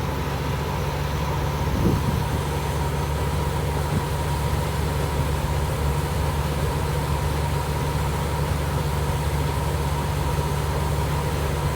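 Threshing machinery running steadily: a constant low engine drone with a thin steady whine above it, and a faint knock about two seconds in and again about four seconds in.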